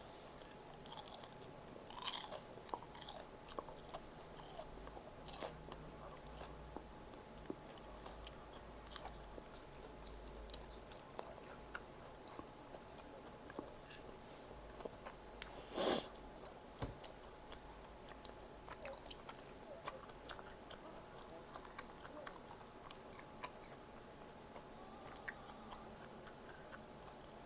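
Close-up eating sounds: a person chewing and biting Korean snack food (bunsik), with scattered small crunches and mouth clicks and one louder, short crunch about sixteen seconds in.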